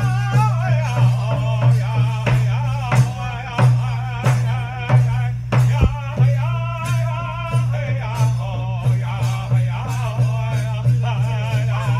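Powwow drum group performing a prairie chicken dance song: a steady drumbeat under group singing whose voices waver in pitch, with the singing coming and going in phrases.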